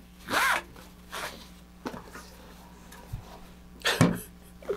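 Quiet rustling of a nylon shock cord and parachute cloth being pulled through a chute protector. A short breathy vocal sound comes about half a second in and another near the end, with a soft low bump around three seconds in.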